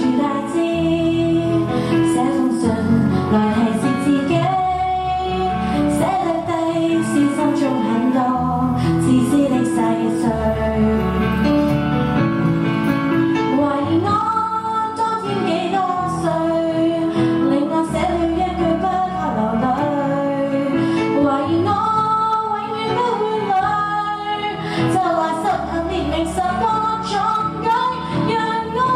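A woman singing a Chinese-language pop song into a handheld microphone over a karaoke backing track, her voice carrying the melody above a steady accompaniment with bass notes.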